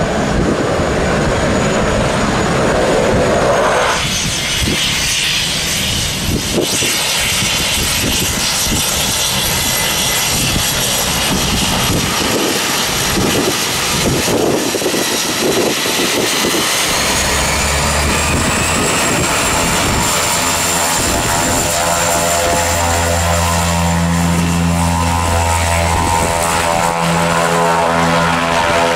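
Cessna 208 Grand Caravan floatplane's PT6A turboprop running as the aircraft taxis: a steady high turbine whine with a propeller drone. The drone grows stronger and fuller in the second half, with several steady low tones.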